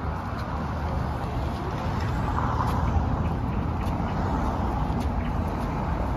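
Outdoor street ambience: a steady low rumble, swelling slightly about halfway through.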